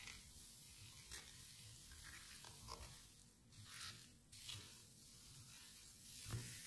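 Faint stirring strokes of a wooden spatula working coarse red chili flakes and liquid into a kimchi seasoning in a metal bowl, with one sharper knock near the end.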